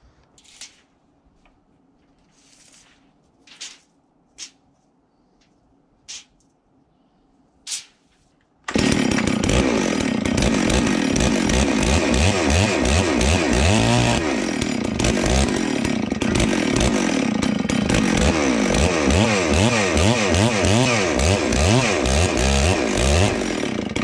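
Two-stroke 92cc Holzfforma G660 chainsaw powerhead driving an earth auger as it bores a post hole. It is held off full throttle, and its pitch wavers up and down as the auger loads and frees in the soil. The engine comes in suddenly about nine seconds in, after a near-quiet stretch with a few light knocks.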